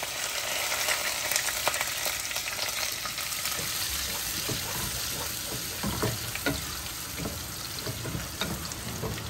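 Sliced garlic, onion and curry leaves sizzling in hot oil and ghee in a nonstick saucepan: the tadka (tempering) for dal, with the mustard seeds already popped. From about halfway through, a wooden spatula stirs the pan, scraping and knocking against it.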